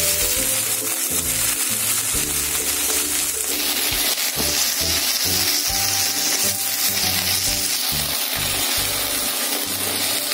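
Chopped okra sizzling in hot mustard oil in a wok, stirred now and then with a flat spatula, under light background music with a steady bass line.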